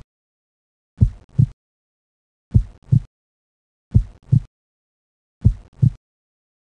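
Heartbeat sound effect: slow, deep double thumps, lub-dub, about every second and a half, four beats with silence between.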